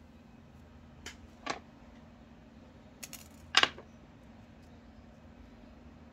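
A few light clicks and taps of small metal fishing tackle (hooks, wire and a small pliers-like tool) being handled and set down on a hard tabletop, the loudest about three and a half seconds in. A faint steady hum lies underneath.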